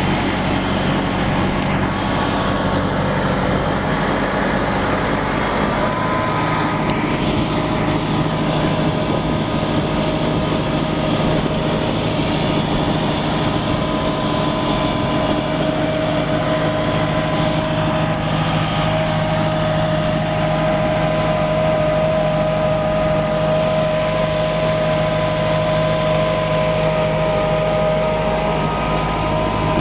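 Fendt tractor engine running steadily under load as it pulls a cultivator through stubble, with a steady high tone running over the engine noise.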